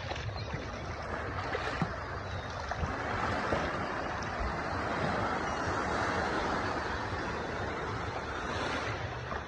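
Small sea waves breaking and washing up a shallow sandy shore: a steady surf hiss that swells a little in the middle.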